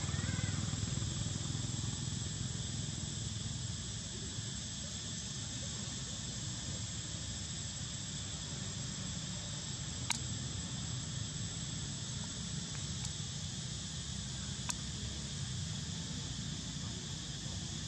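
Steady outdoor ambience: insects buzzing in a constant high drone over a low rumble, with two short, sharp clicks about ten and fifteen seconds in.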